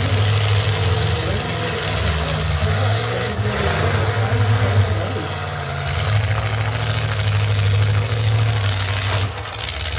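Engines of demolition derby pickup trucks running steadily, with a deep low rumble.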